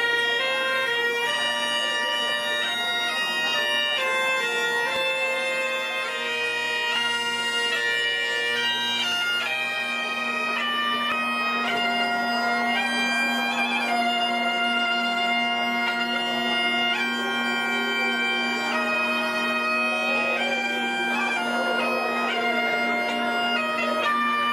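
Asturian bagpipe (gaita) playing a tune over its steady drone, with the melody stepping between held notes.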